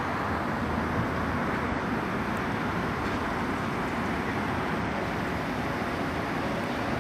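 Steady outdoor background rumble and hiss, even throughout, with no distinct events.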